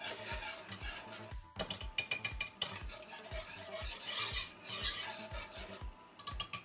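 A metal wire whisk beating a thick cream sauce in a pot, its wires scraping and tapping the pot in quick, steady strokes of about five a second, with a brief break about one and a half seconds in.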